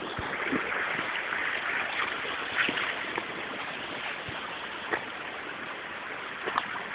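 Small brook and waterfall running over rocks: a steady rush of water, with a few faint clicks and knocks scattered through it.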